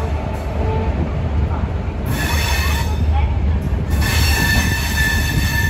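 Gatimaan Express wheels squealing on the rails as the train pulls slowly out of the station, over a steady low rumble. The high squeal comes and goes, rising about two seconds in and again from about four seconds on.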